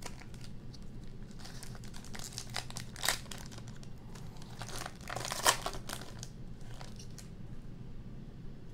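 Plastic foil wrapper of a 2020 Donruss football card pack being torn open and crinkled by hand, with two sharp, louder crackles about three seconds and five and a half seconds in.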